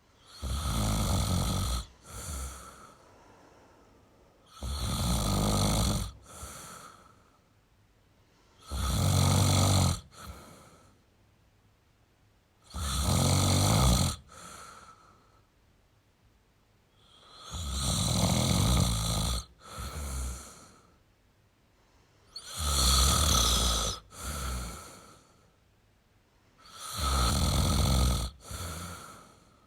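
A man snoring steadily: seven long snores about every four to five seconds, each followed by a shorter, softer breath.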